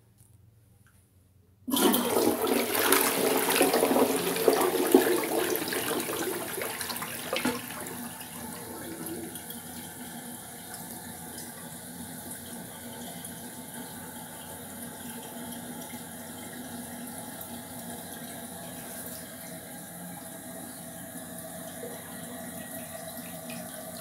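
Toilet flushing: about two seconds in, a sudden loud rush of water into the bowl that fades over several seconds, then a steady, quieter run of water as it refills. The owner says this toilet runs slow to flush.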